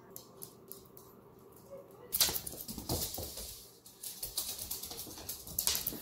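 A small dog's claws tick lightly on a wood-laminate floor. From about two seconds in comes a much louder, rapid patter and scuffing as the dog scampers across a hardwood floor.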